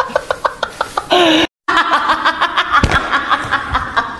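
A young man's hard, high-pitched laugh in rapid ha-ha pulses, about seven a second. It breaks off about a second and a half in, and another stretch of hard laughter follows.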